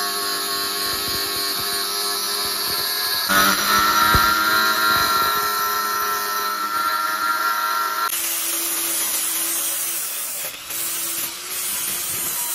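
A power tool running with a steady whine. The sound shifts abruptly about three seconds in and again about eight seconds in, and after that it turns into a rougher, more hissing sound.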